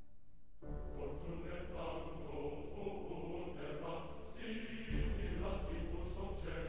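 Background music with low, chant-like choral voices over a droning bed. It comes in less than a second in, and a deeper bass layer joins about five seconds in.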